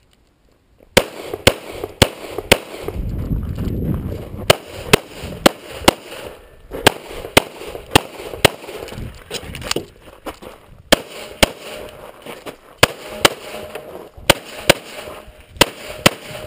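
Rapid semi-automatic pistol fire from an EAA/Tanfoglio Witness Elite Match in .40 S&W: about two dozen shots in quick strings, roughly two a second, starting about a second in, with brief pauses between strings while the shooter moves and reloads.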